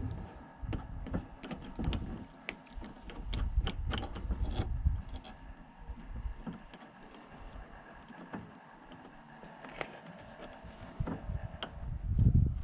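Irregular metallic clicks, knocks and clanks of hand tools and metal parts being worked on a bus's windscreen wiper spindle mechanism, with heavier low thuds about a third of the way in and again near the end.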